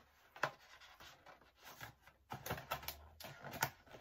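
Handling and opening a small cardboard box: a sharp tap about half a second in, then a run of light scratches, taps and scrapes on the cardboard through the second half.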